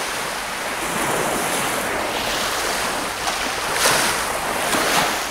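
Baltic Sea surf washing steadily onto the beach, with a couple of brief louder swishes about four and five seconds in.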